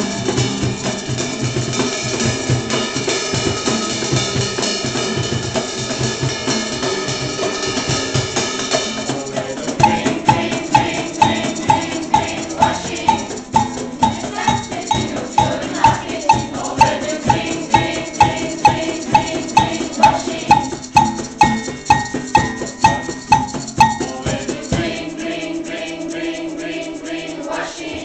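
Live music from a student ensemble with hand percussion: held notes over a steady low drum beat, then from about ten seconds in a sharp, pitched percussion knock about twice a second takes over, giving way near the end to softer held notes.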